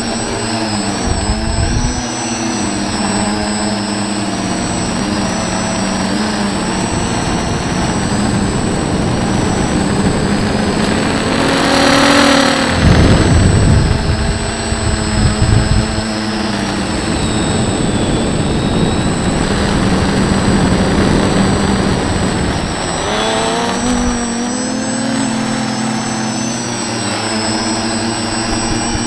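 Graupner X-44 RC model aircraft's motors and propellers, recorded from its onboard camera. A steady whine with several tones that waver slightly in pitch, over air rushing across the microphone. The rushing swells loudest about twelve to sixteen seconds in.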